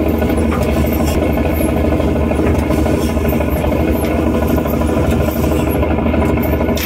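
Fishing boat's engine running steadily while the net is hauled aboard.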